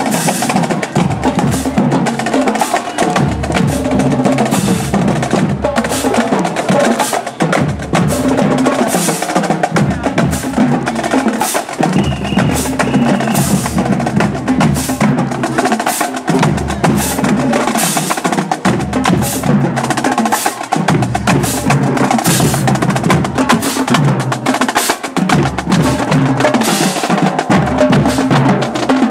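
Marching drums playing a continuous rhythmic cadence of sharp hits.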